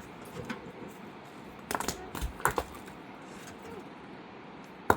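Sharp knocks and clicks of wood and tools being handled: a few at a time, with a cluster of several about two seconds in and a single one near the end.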